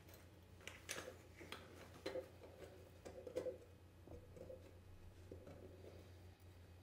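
Faint light clicks and ticks of a compression sleeve and nut being handled and seated on the end of a half-inch copper pipe by hand, most of them in the first four seconds, over a steady low hum.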